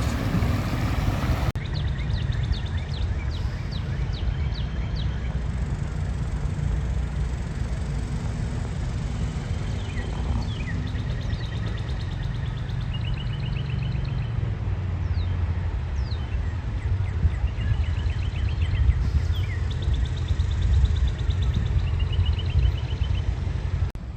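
Birds chirping in short repeated trills over a steady low rumble.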